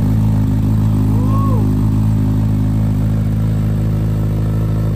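Sport-bike inline-four engine idling steadily through a titanium exhaust.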